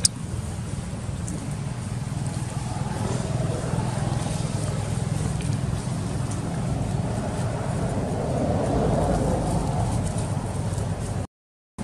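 Steady low outdoor rumble, like wind on the microphone, with no calls from the monkeys; the sound cuts out abruptly near the end.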